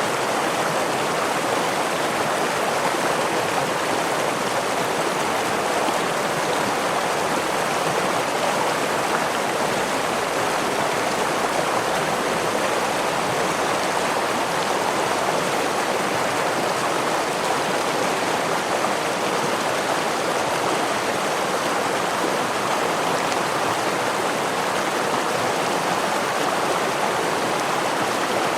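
Running water of a stream or small waterfall, a steady even rush with no change.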